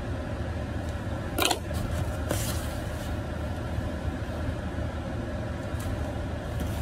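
Steady low hum inside a parked car's cabin, with two brief rustles about a second and a half and two and a half seconds in.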